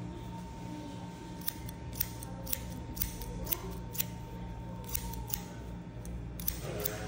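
Barber's hair-cutting shears snipping hair held on a comb: a run of crisp snips, about two a second from about a second and a half in, then more spaced out.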